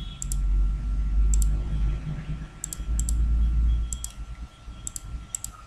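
Computer mouse clicking several times, often in quick pairs, about a second apart, over a low steady rumble.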